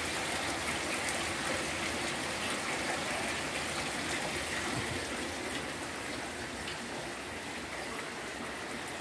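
Heavy rain falling steadily on a flooded yard, a continuous even hiss of water.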